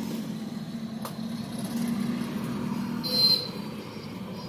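A steady low mechanical hum, with a single faint click about a second in and a brief high-pitched tone a little after three seconds, the loudest moment.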